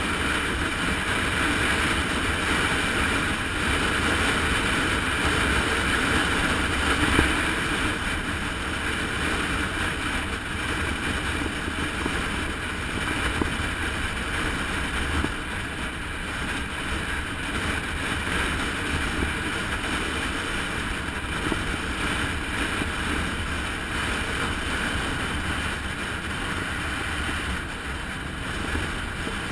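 Steady wind rush over the microphone of a camera on a bicycle descending a mountain road at speed, with rumbling buffeting and road noise.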